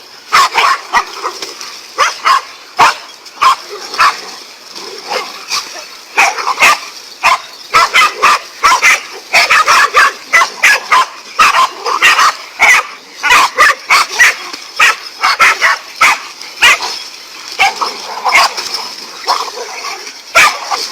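Several dogs barking rapidly and excitedly in quick, overlapping barks, as they attack a snake.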